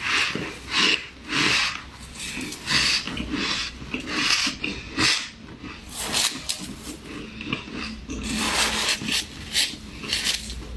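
Squeaky ice being bitten and chewed close to the microphone: a run of crisp, irregular crunches, roughly one or two a second.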